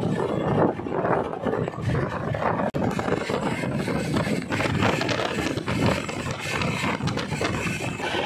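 Passenger train carriage in motion: a steady rumble with irregular rattling and clatter.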